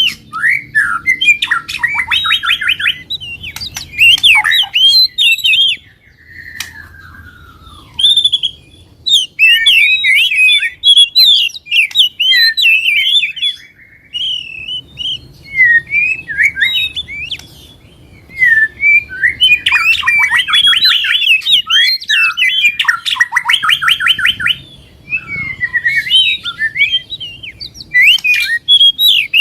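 A mix of songbirds singing: fast trills, chirps and chattering phrases in dense, overlapping runs, with a few short lulls. It is a combined birdsong track used to prompt caged birds to sing.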